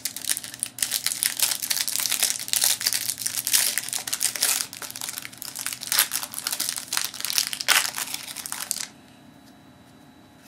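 Plastic wrapping of a trading-card pack being crinkled and crumpled by hand, a dense run of crackling for about nine seconds that then stops.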